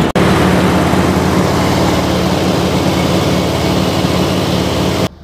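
Steady drone of an engine running on the boat, cutting off suddenly near the end.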